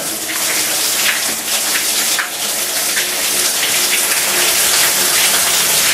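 Water gushing from a bath tap into an empty bathtub, a steady loud splashing on the tub's bottom that starts as the tap is turned on.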